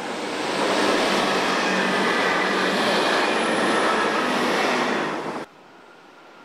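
A train running on the rails, its noise swelling over the first second and holding steady, with a faint high wheel squeal. The sound cuts off suddenly about five and a half seconds in.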